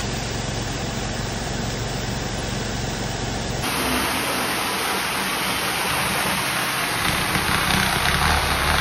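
Hard-surface spinner tool spraying pressurised water and vacuuming it back up: a steady hiss of spray over the running extraction machine, with a sudden change in tone about three and a half seconds in.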